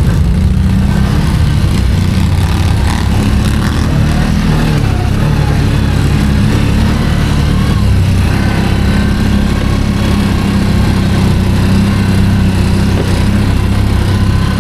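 ATV engine running at low revs, its pitch shifting up and down a few times.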